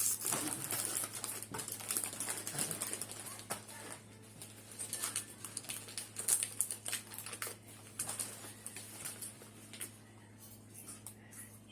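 Plastic snack packaging crinkling and rustling as it is handled, a dense run of irregular crackles and clicks that thins out in the last few seconds.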